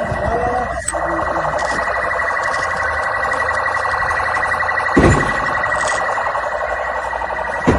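Police vehicle siren sounding a fast, rapidly repeating warble, with a short thump about five seconds in and another near the end.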